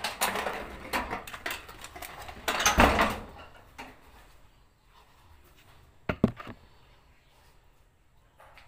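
Corrugated metal sheet door scraping and rattling as it is pushed open by hand, loudest about two and a half seconds in, followed about six seconds in by a couple of sharp knocks.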